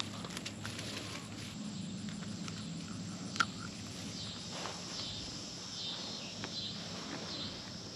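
Grass rustling and small clicks as hands work a landed bass free in tall grass, with one sharp click about three seconds in. Insects chirr steadily behind it, more clearly in the second half.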